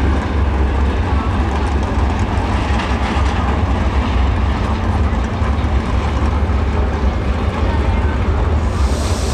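Steady low rumble of super late model race car engines running at low speed, with a brief hiss near the end.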